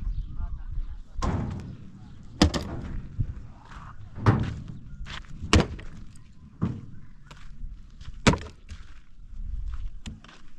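A series of heavy knocks and thuds, about six sharp ones at irregular intervals.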